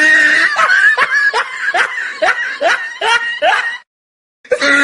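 A person laughing in a quick run of short rising 'ha' sounds, about two or three a second. It breaks off near the end and starts again with the same pattern, like a repeated laugh clip.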